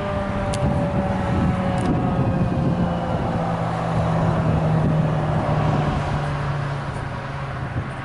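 Federal Signal 2001 electromechanical siren winding down after a test run: its tone slides slowly lower and fades as the rotor spins down. A low steady hum and traffic-like noise run underneath.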